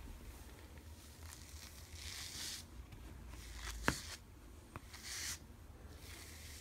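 Pet grooming brush being drawn through a cat's fur in short rustling strokes, two of them louder, about two and five seconds in. A single sharp click, the loudest sound, comes near the middle.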